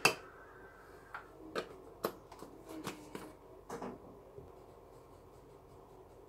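Dry cornflakes dropping into and being handled in the plastic bowl of a manual food processor. There are a couple of sharp knocks at the start, then scattered light crunchy ticks and rustles for about four seconds.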